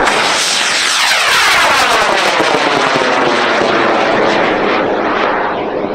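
Aerotech K560 high-power rocket motor firing at liftoff, a loud steady rush that starts abruptly. A falling sweep runs through it as the rocket climbs away, and it fades near the end.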